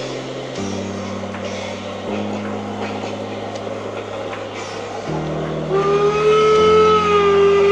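A model narrow-gauge steam locomotive's digital sound decoder gives a long steam whistle, starting about two-thirds of the way through and still sounding at the end, over background music with slowly changing chords.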